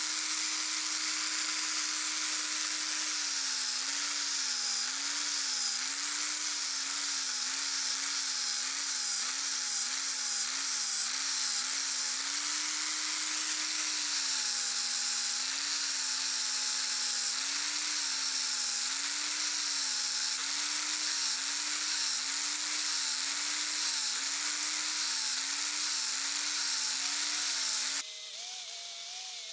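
Small electric power tool running with a hissing grinding or sanding noise, its motor note dipping and wobbling in pitch as it is pressed into the work. Near the end the hiss drops away and the motor note falls lower.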